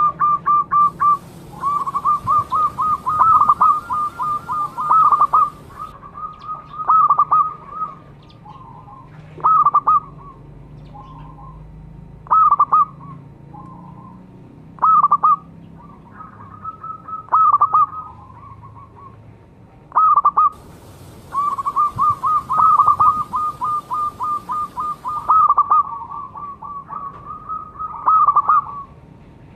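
Zebra dove (perkutut) cooing: runs of rapid, staccato notes repeated in bursts, two long runs lasting several seconds near the start and about two-thirds through, and short phrases between them, separated by pauses.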